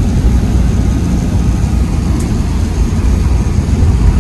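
Steady low rumble of engine and tyre-on-road noise inside a moving van's cabin at highway speed.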